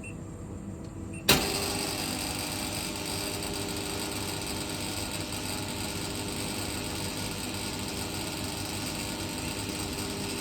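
Farm vending machine's rotating carousel: a click about a second in, then its electric motor starts and runs steadily, turning the compartments round after the button is pressed.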